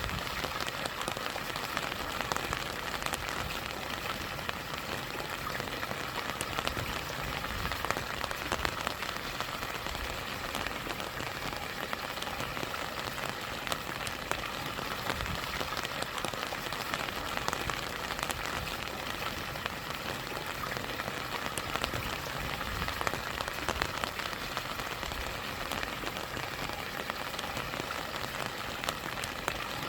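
Rain falling on a rushing stream with a small waterfall: an even, steady hiss of water flecked with many small, sharp drop ticks.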